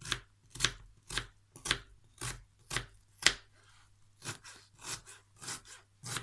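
Knife finely dicing an onion, a run of sharp chops at about two a second, with a short pause a little past the middle before the chopping picks up again.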